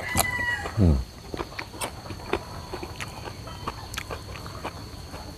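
A rooster crowing, its call ending about a second in with a falling pitch, followed by scattered light clicks and taps.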